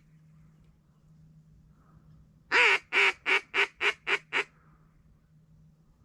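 Duck call blown in a run of about seven loud quacks, the first longest and the rest shorter and quicker, a greeting call to draw passing ducks in.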